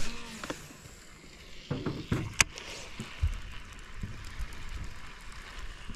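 Handling of a baitcasting rod and reel: light rustling and low knocks, with one sharp click about two and a half seconds in, over a faint steady hiss of wind.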